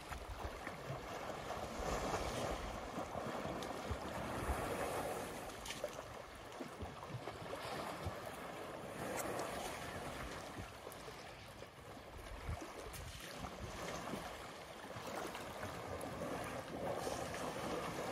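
Water sloshing and lapping in a muddy waterhole as elephants stand and lie in it, coming in soft swells. Wind buffets the microphone with an irregular low rumble.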